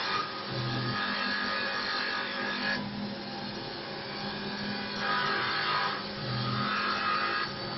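Mini CNC wood-turning lathe running, its cutting tool scraping into the spinning wood blank over a steady hum. The cutting noise comes and goes as the tool moves, strongest in the first few seconds and again about five seconds in.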